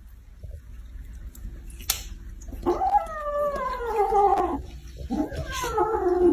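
Dog giving two long, falling howls, the first lasting about two seconds and the second shorter, near the end. A sharp click comes just before the first howl.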